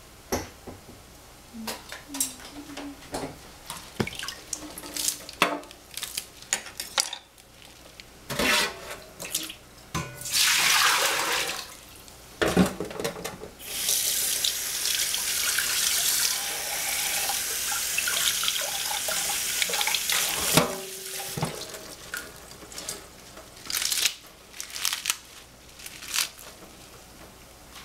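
Kitchen tap running into a small stainless steel saucepan in a stainless steel sink while leafy greens are rinsed by hand. The water runs briefly about ten seconds in, then steadily for about seven seconds from about fourteen seconds. Before and after, there are scattered splashes, drips and knocks of wet greens being handled in the sink.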